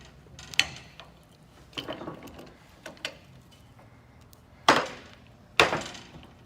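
Workshop handling noise: a few light knocks and clicks, then two louder sharp clunks about a second apart near the end, each trailing off briefly.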